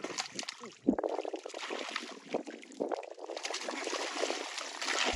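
Hands sloshing and squelching through shallow muddy water and soft mud, with irregular small splashes and one sharp slap of water about a second in.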